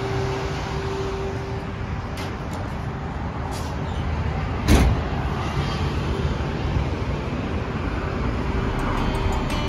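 Car driving at highway speed: steady road and engine noise, with one brief thump about halfway through.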